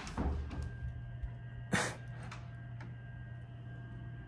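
Quiet room tone: a low steady hum with faint steady tones above it, broken once, nearly two seconds in, by a short sharp noise.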